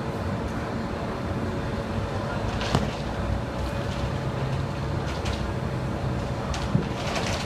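Steady outdoor traffic rumble and wind noise on the microphone, with a sharp knock about three seconds in and a low thump near the end.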